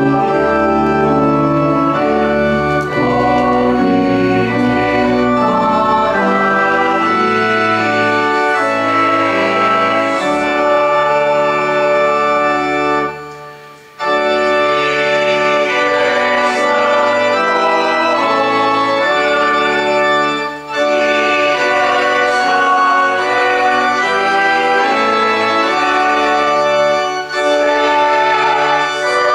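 Church organ playing a hymn in sustained full chords over a deep pedal bass, phrase after phrase, with a short break between phrases about halfway through.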